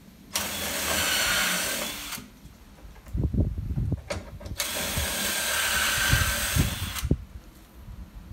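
Cordless drill boring shelf-pin holes through a shelf peg jig into oak plywood, in two runs of about two seconds each. A few low knocks come between the runs.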